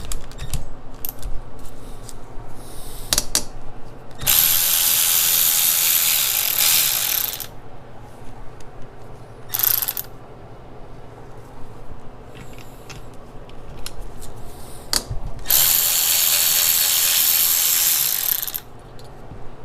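Ratchet wrench clicking as seized fasteners on a turbo and exhaust manifold are worked loose. Single clicks alternate with two stretches of fast, continuous ratcheting, each about three seconds long.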